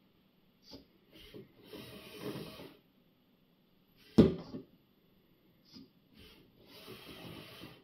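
Motors of a LEGO SPIKE Prime robot arm whirring in two stretches of about a second each as the arm swings and lifts, with small plastic clicks before each stretch and one loud clack about four seconds in.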